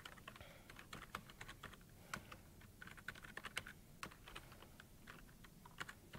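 Faint typing on a computer keyboard: an irregular run of key clicks with short pauses between bursts.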